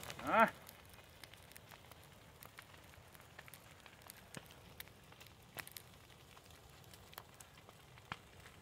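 Dry brush and grass burning in a field fire, crackling with scattered sharp pops. A brief pitched call just after the start is the loudest sound.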